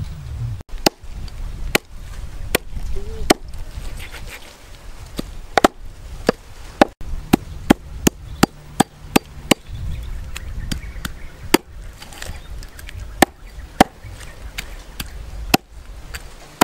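A knife chopping a snake into pieces on a round wooden chopping block: about twenty sharp strikes of the blade into the wood at an uneven pace, coming quickest about halfway through, over a steady low rumble.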